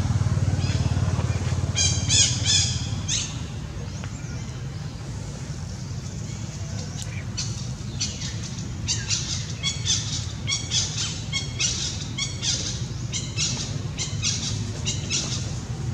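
Short, high-pitched squeaky calls from animals, a few about two seconds in, then a quick run of them from about eight seconds on, over a steady low rumble that is loudest at the start.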